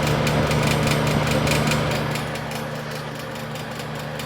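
Vintage Emerson Quiet Kool Frost Sentry 22 dehumidifier running in heater mode: a steady fan-motor hum with a fast, even ticking, about five ticks a second, from the unit as its heater warms up. About halfway through, the ticking fades and the hum drops a little quieter.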